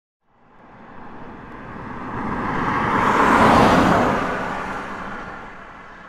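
A car driving past, its engine and tyre noise rising to a peak about halfway through and then fading away.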